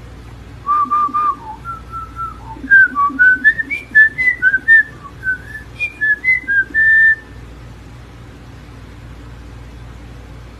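Pet talking bird whistling a tune of short, clear notes that step up and down in pitch, stopping about seven seconds in; a steady low hum sits underneath.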